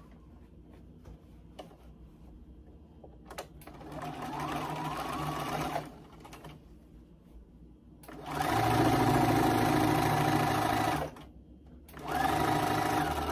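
Bernina computerized sewing machine stitching a seam in three runs: a short one about four seconds in, a longer, louder run of about three seconds starting around eight seconds in, and a third starting near the end. Before the first run there are only faint clicks of the fabric being handled and positioned.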